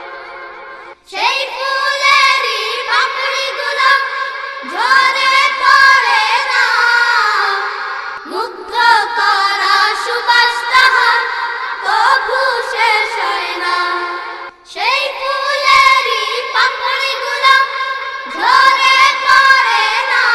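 A Bengali gojol being sung: a melody carried by voice in long, wavering phrases with brief breaks between them.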